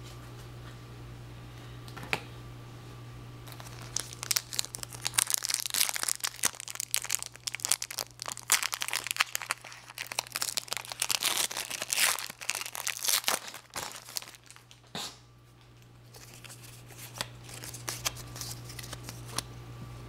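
Foil wrapper of a trading-card booster pack being torn open and crinkled by hand: dense crackling from about four seconds in, easing off near the middle, then lighter crinkling as the cards are handled.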